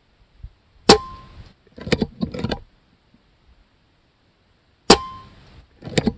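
Two shots from an RTI Prophet .22 PCP air rifle firing slugs, about four seconds apart: each a sharp crack with a brief ring, followed about a second later by a quick run of metallic clicks and clanks.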